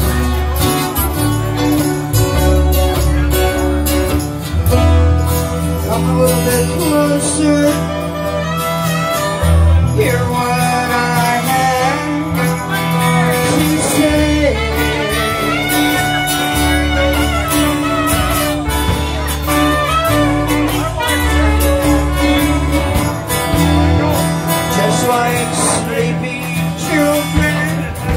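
Live band playing a song: several guitars strummed with a woman singing into a microphone.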